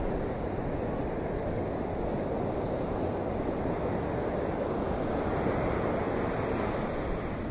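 Steady rush of surf with wind, swelling slightly about five to six seconds in.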